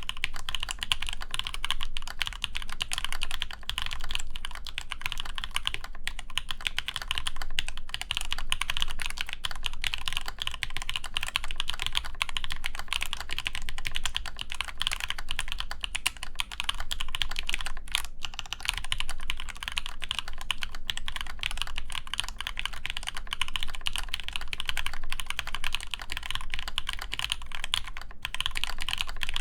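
Continuous typing on an AEBoards Praxis IM mechanical keyboard (ABS injection-molded case, full aluminum plate, GMK keycaps) with Zepsody Blue Bonnet switches lubed with Krytox 205g0. It is a dense, steady run of keystroke clacks with a brief pause about eighteen seconds in.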